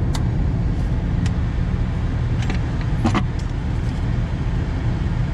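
Steady low rumble of idling truck engines, with a few short sharp clicks as the fan clutch solenoid's wiring plug is pushed back in.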